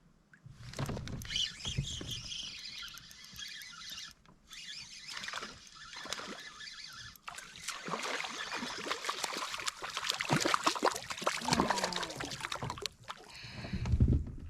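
Water splashing and rattling handling noise on a kayak as a small bass is fought to the boat and brought in, with a heavy low thump near the end.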